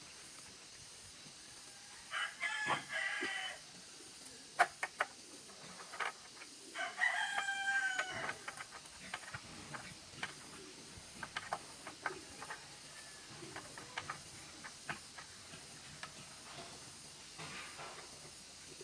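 A rooster crowing twice, about four seconds apart, with a few sharp clicks in between.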